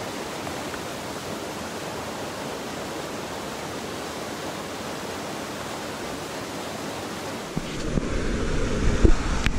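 Steady rush of a mountain stream falling over small cascades. Near the end it turns louder and deeper, with a few short knocks.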